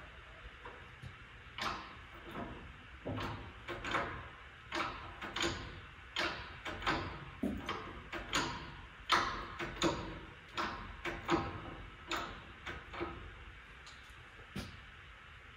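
Arcan 50-ton hydraulic shop press being pumped by its hand lever, a steady run of clicks and knocks about one to two a second as the ram compresses a Humvee front coil spring.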